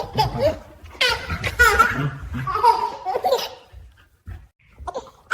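A baby laughing in repeated bursts, falling mostly quiet about three and a half seconds in.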